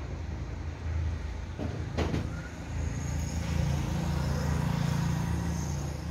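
Low, steady engine hum of road traffic, swelling for a few seconds as a vehicle passes, with a single sharp click about two seconds in.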